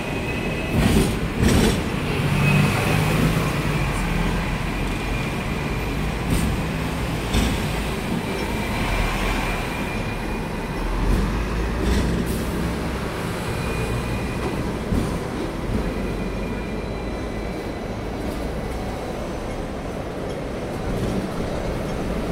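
Hong Kong double-decker tram running on street track, heard from aboard: a steady low rumble with a thin high wheel squeal on the rails now and then and a few sharp clacks.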